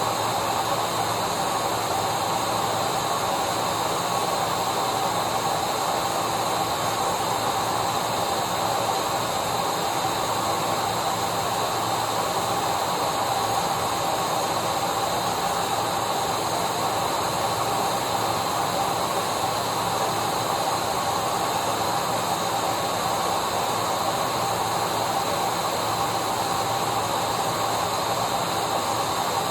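Vacuum cleaner running steadily: a continuous whooshing motor noise with a constant whine, unchanging throughout.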